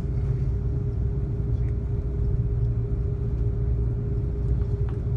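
Steady low rumble heard inside the cabin of an Airbus A330-200 taxiing after landing, with a constant hum over it.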